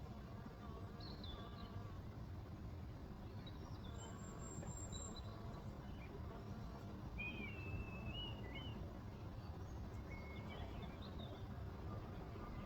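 Several birds chirping and calling intermittently, with one warbling call about seven seconds in, over a steady low outdoor rumble.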